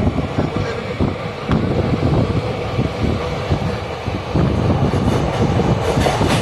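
Train running along the track, heard from inside the carriage at a barred window: a steady rumble of wheels on rail with quick uneven knocks, growing louder about four and a half seconds in.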